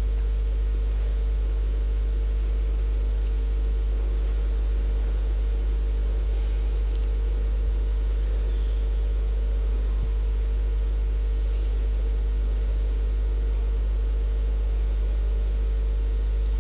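Steady low electrical hum with a faint even hiss and a few thin steady tones: the recording's mains hum and noise floor, with no other sound standing out.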